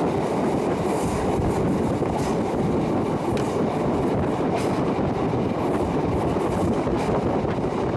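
A train running along the track, heard from the window: a steady rumble of wheels on rail with a few light clicks.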